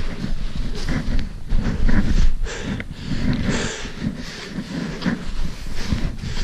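Footsteps plunging and crunching through deep snow, with clothing and trekking poles swishing close by, in an uneven run of steps.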